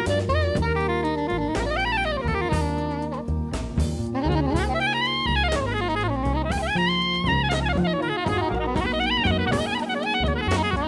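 1970s jazz quartet recording: a saxophone plays fast runs that rise and fall, over bass and drum kit.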